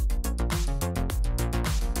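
Electronic background music with a steady, fast drum beat and heavy bass.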